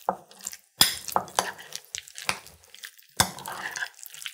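A utensil stirring a thick goat cheese and dried cranberry stuffing in a bowl, with several sharp knocks and scrapes against the bowl and soft mixing between them.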